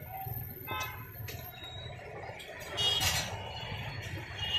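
Street-food stall background: a steady low rumble with a few light clinks and taps of the vendor's utensils, and a brief louder clatter about three seconds in.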